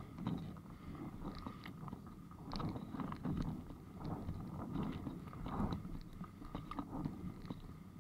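Windsurf board moving over choppy water, heard muffled through an action camera's waterproof housing: a steady low rumble of water with many irregular clicks and knocks.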